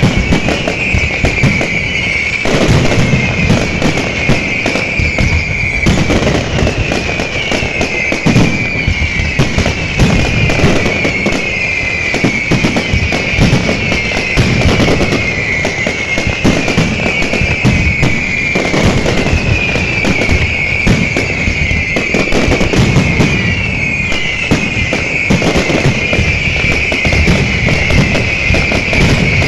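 Fireworks going off in a dense, continuous barrage of bangs and crackles. A high falling whistle repeats about every second and a half.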